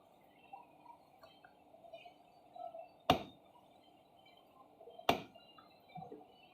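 Two sharp plastic snaps about two seconds apart, with faint scraping and handling between them: the snap-in clips of a laptop's bottom cover popping loose as the cover is pried open.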